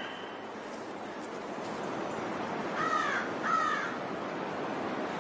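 A crow cawing twice in quick succession, a little past the middle, over the steady rushing of a creek.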